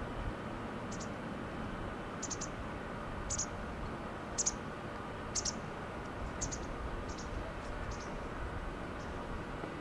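Steady distant roar of an Airbus A380-841's four Rolls-Royce Trent 900 turbofans as it climbs away after takeoff. Over it come short high-pitched chirps, single or in quick pairs and triples, about once a second.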